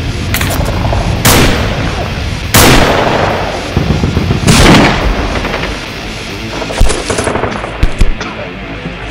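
Rifle gunfire in an action-film battle soundtrack. Three heavy shots or blasts come about a second or two apart in the first five seconds, each with a long echo, then scattered sharper shots follow near the end.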